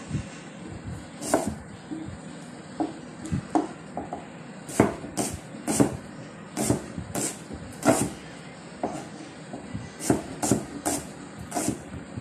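Kitchen knife slicing a red onion on a plastic cutting board: a string of irregular knocks as the blade strikes the board, about fifteen of them, coming faster in the second half.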